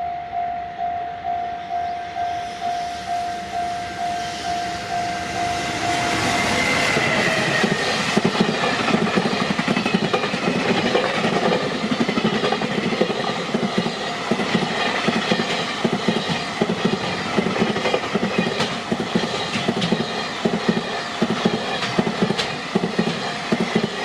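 Level-crossing warning bell ringing in a steady repeated tone, about two strikes a second. About six seconds in a freight train passes at speed and drowns it out, the wagons' wheels clacking in a fast, even rhythm over the rail joints.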